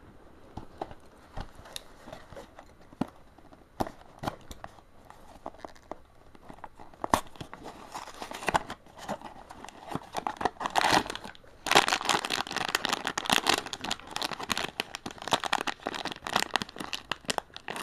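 Small cardboard blind box being torn open and its inner wrapper crinkled as a vinyl figure is unwrapped. Sparse clicks and rustles at first, then dense, louder crinkling from about seven seconds in.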